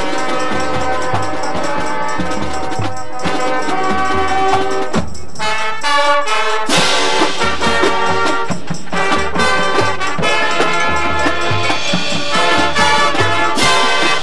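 Marching band playing: the brass section holds sustained chords over a steady low drum beat about twice a second. There is a loud crash about halfway through and another near the end.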